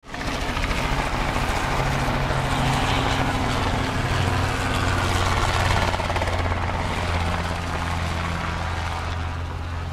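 Helicopter flying nearby: a steady rotor chop over a low engine hum.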